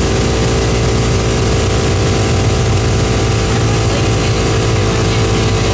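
Twin-turbocharged 5.3 L LS V8 in a Chevy S10 running at a steady speed on a chassis dyno, exhausting through mufflers, with no change in revs.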